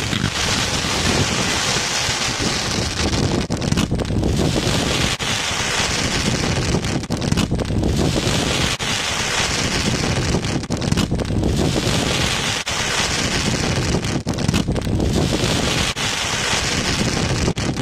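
Heavy wind buffeting the microphone over a 100-shot repeating firework cake firing its fans of shots, with rapid sharp pops and a crackling hiss that swells and fades every few seconds.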